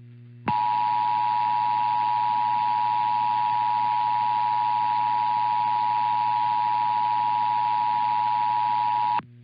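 Emergency Alert System attention signal: the steady two-tone alert tone (853 and 960 Hz together), starting about half a second in and cutting off sharply near the end after about nine seconds. It announces the start of a required monthly test of the alert system.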